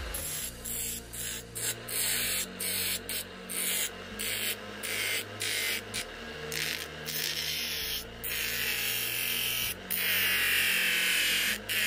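Homemade mini bench grinder driven by a 550 DC motor, running with a steady hum while a workpiece is pressed against the spinning wheel again and again. The grinding makes a gritty hiss in short strokes, a few each second, and gives way to longer steady passes near the end.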